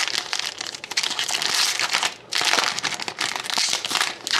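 Trading-card pack wrapper being torn open and crinkled by hand, a dense crackling with a short break a little over two seconds in.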